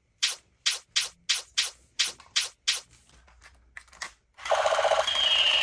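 Eight sharp snaps in quick succession, then a few faint clicks. About four and a half seconds in, a battery-powered toy gun starts firing with a loud, steady electric buzzing rattle and a high whine.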